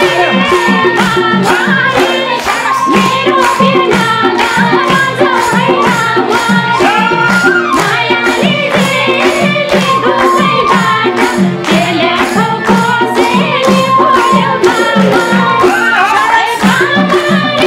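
Nepali dohori folk music played live: madal drums keep a steady beat under a bansuri flute melody, with hands clapping along in time.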